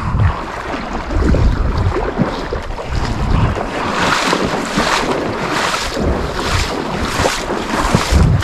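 A person wading through shallow marsh water, splashing strides at roughly two a second in the second half, over wind rumbling on the microphone.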